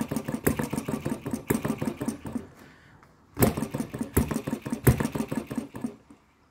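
MUSA HM-01 7cc four-stroke model hit-and-miss engine running in two short spells of rapid, clattering firing, each dying away after a few seconds. The engine is flooding and running too rich, because the stiff needle valve was never fully shut.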